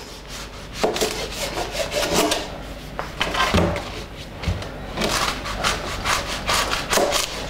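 A large kitchen knife sawing through the ends of a leek on a plastic chopping board: repeated rasping strokes through the fibrous layers, with a few knocks as the blade meets the board.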